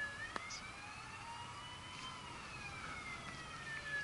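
Emergency vehicle siren in a slow wail: its tone rises for about two seconds, falls for about two, and starts rising again near the end. A small click sounds about half a second in.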